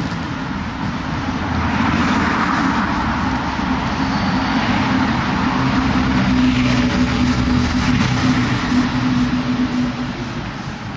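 Street traffic: cars passing, with the noise of each swelling and fading, over a low steady engine hum.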